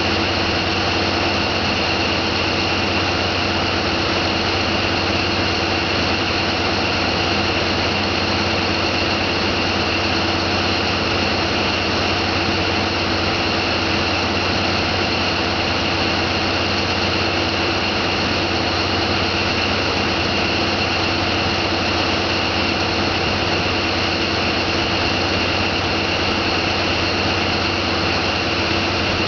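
Boat engine running steadily under way: a constant low drone with a steady high whine above it.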